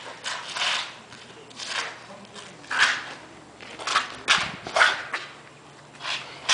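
About seven short swishing and scuffing noises, the loudest near the middle: a jian straight sword swung through the air and sneakers sliding and pivoting on asphalt during a sword form.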